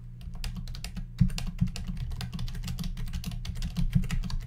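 Typing on a computer keyboard: a quick, uneven run of key clicks throughout.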